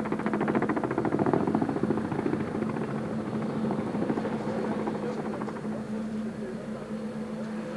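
Boeing Vertol 107 (HKP 4) tandem-rotor helicopter passing low, its rotor blades giving a rapid, regular beating over a steady low hum. The beating is loudest in the first couple of seconds and fades as the helicopter moves off.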